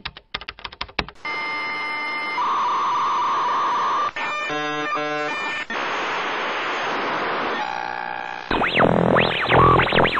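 Electronic logo sting made of synthesized sound effects: a run of crackling clicks, then static hiss with a steady high beep, a stuttering glitch in the middle, and louder sweeping tones that rise and fall near the end.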